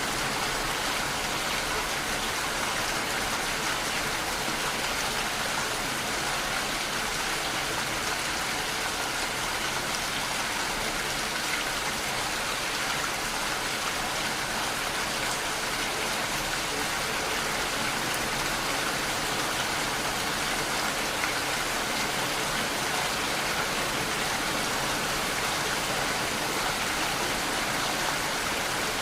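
Steady rain falling: an even, unbroken hiss of raindrops.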